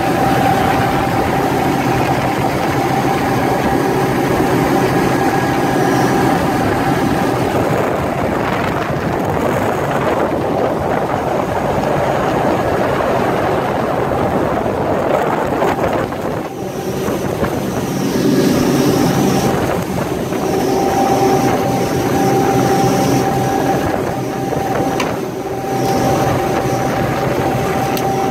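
Three Mercury FourStroke outboard engines running steadily at cruising speed, mixed with the rush of wind and water as the boat moves, with brief dips in level about halfway through and again near the end.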